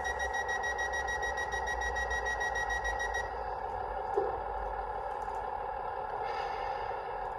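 Class 150 DMU DCC sound file through the model's speaker: the passenger door warning, a rapid high-pitched beeping, stops about three seconds in over the steady diesel idle. A brief blip follows a second later, and a short hiss near the end.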